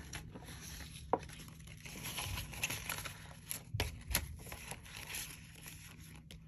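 Paper banknotes and a clear plastic binder pouch rustling and crinkling softly as bills are handled and slid into the pouch, with a few sharp clicks.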